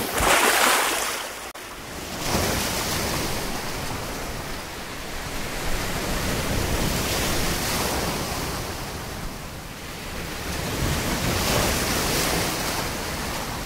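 Sea surf: waves breaking and washing up in slow surges that swell and ease, the loudest near the start and again near the end.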